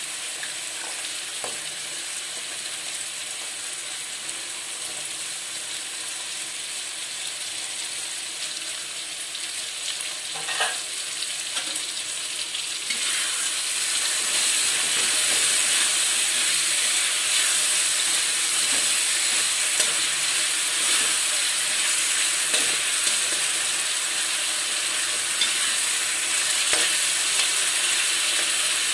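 Chunks of taro sizzling in hot oil and masala in a kadai. About 13 seconds in a spatula starts stirring them through the pan, and the sizzle grows louder, with a few light scrapes.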